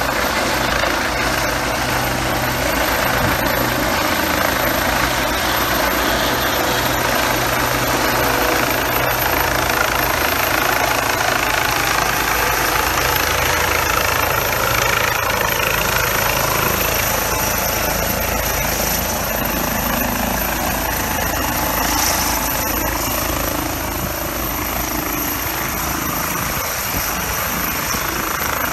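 Medical helicopter's rotor and turbine engine running loud and steady as it descends and lands in a field.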